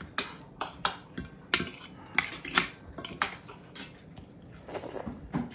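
Metal spoons and forks clinking and scraping against ceramic plates and a bowl during a meal, in quick, irregular clicks.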